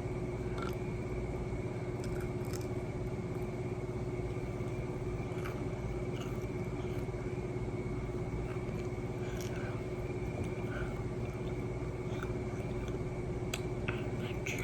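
Quiet chewing, with scattered soft mouth clicks over a steady low background hum.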